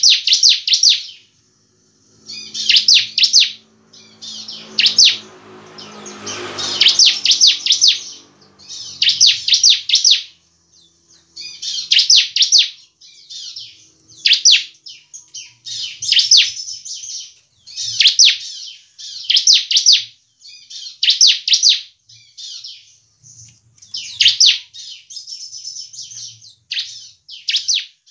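Bar-winged prinia (ciblek) singing: repeated short bursts of rapid, high-pitched chattering notes, one every second or two. A brief low rushing noise lies under the song around five to seven seconds in.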